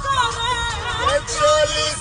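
A Bhojpuri song: a voice singing a wavering melody over backing music.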